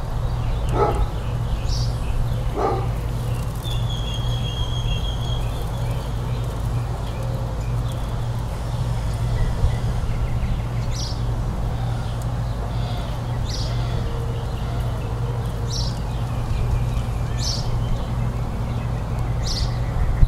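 Outdoor ambience: a steady low rumble, a dog barking twice about one and three seconds in, and short bird chirps repeating through the second half.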